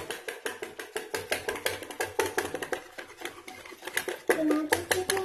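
Wire whisk clattering rapidly against the bowl, several strokes a second, while beating a liquid cake batter of eggs, sugar, oil and milk.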